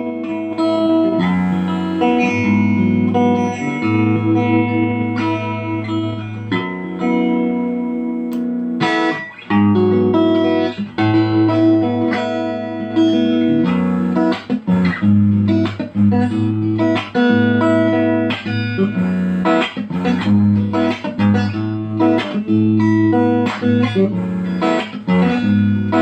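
Sunatone SG electric guitar played with a clean tone: ringing chords that change every second or so, a short break just before ten seconds in, then more rhythmic, sharply struck chords.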